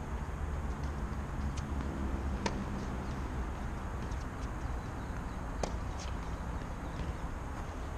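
Tennis balls struck by rackets and bouncing on a hard court during a rally: sharp pops, the two loudest about two and a half and five and a half seconds in, with fainter ones between, over a steady low outdoor rumble.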